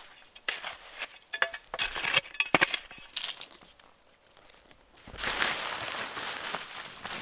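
Snow crunching and crackling underfoot: scattered sharp crunches over the first few seconds, then a steady crunching rush from about five seconds in.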